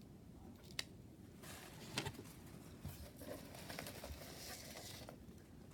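Faint rustling and crinkling of packaging being handled and opened, with a couple of light clicks about one and two seconds in.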